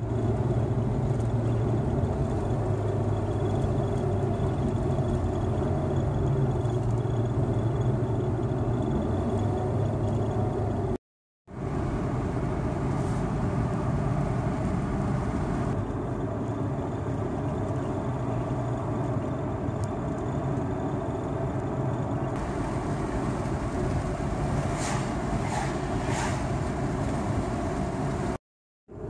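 Steady road and engine noise of a moving car heard from inside the cabin, broken by two short breaks of silence, about eleven seconds in and near the end.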